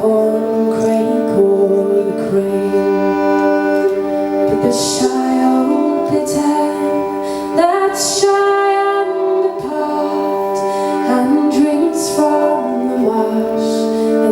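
Live folk music: sustained, slowly changing chords with a woman's singing voice, part of a slow ballad.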